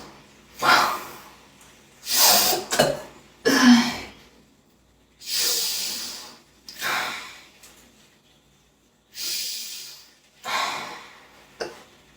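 A young woman with hiccups breathing hard and gasping, about nine noisy breaths spaced unevenly, some of them catching sharply like hiccups.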